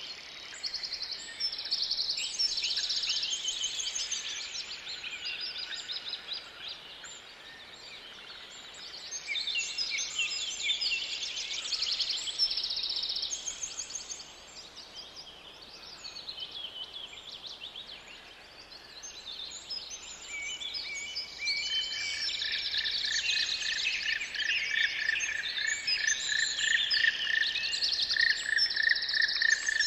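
Many small birds chirping and singing at once, a dense overlapping chorus of high chirps and trills. About two-thirds of the way through, one bird adds a rapid run of repeated notes, lower in pitch than the rest.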